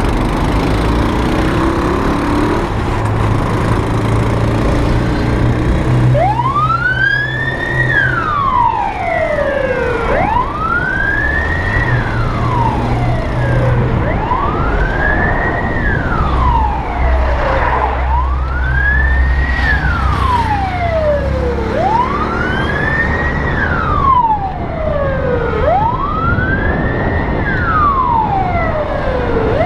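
An emergency vehicle's wail siren starts about six seconds in and sweeps slowly up and down in pitch, one cycle every four seconds or so, over steady traffic and road noise.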